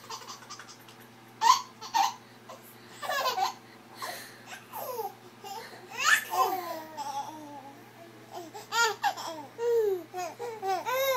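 Baby laughing in short separate outbursts mixed with babbling and squeals, the bursts coming closer and louder near the end.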